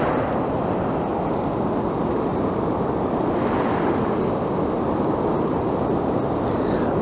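Steady rushing noise of ocean surf washing in the shallows, mixed with wind on the microphone, swelling a little about halfway through.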